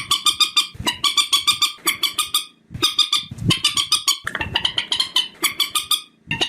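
Recorded calls of the bird known in Vietnam as trích ré: rapid runs of sharp repeated notes, about six or seven a second. The runs break off briefly about two and a half seconds in and again near the end.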